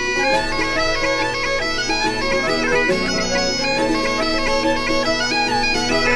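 Instrumental intro music: a moving melody played over steady held drone notes.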